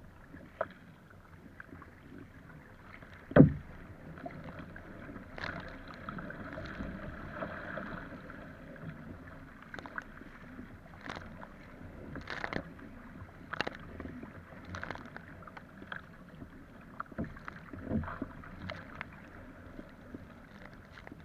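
Epic V7 surfski being paddled through choppy water: steady rushing and splashing of water along the hull, with a paddle stroke splashing in roughly every second. A loud thump comes about three seconds in.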